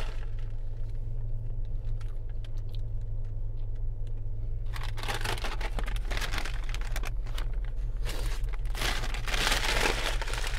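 Food packaging crumpling and rustling, light and scattered at first, then heavy and continuous from about five seconds in and loudest near the end, over a steady low hum.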